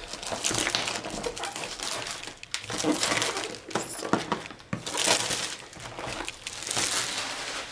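Plastic shrink-wrap crinkling and rustling as it is torn and pulled off a long cardboard box by hand, in several louder surges.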